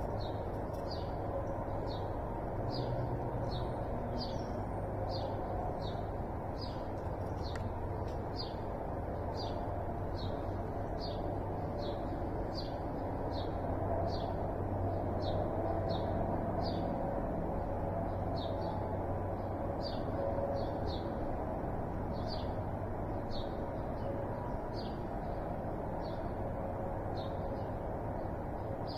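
A bird repeating a short, high, downward-slurred chip note at an even pace of about three notes every two seconds, over a steady low background hum.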